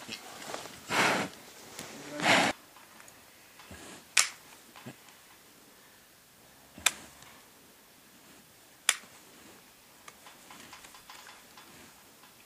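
Steel hoof nippers snapping through the wall of a cow's front hoof during trimming: three sharp, separate snaps a couple of seconds apart. Two short rushing noises come before them, in the first few seconds.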